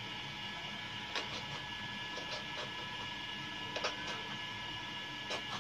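Knife cutting through a green pepper held in the hand, a few faint crisp cuts, about three, over a steady background hum.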